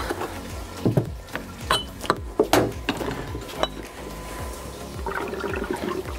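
Sharp metal clinks and knocks as a motocross fork is worked in a bench vise with soft jaws and lifted out, then fork oil sloshing and draining from the tipped fork tube near the end.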